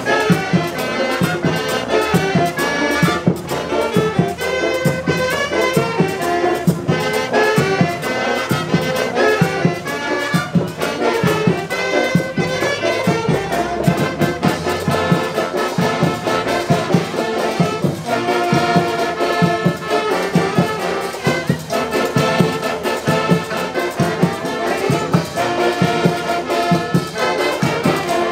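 Music led by brass instruments, with a steady beat.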